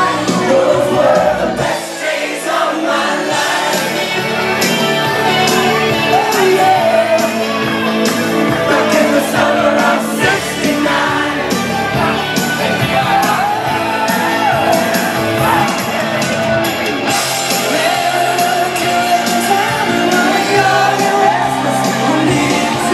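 Loud pop-rock song with a singer playing over a dance floor, with shouts and whoops from the crowd.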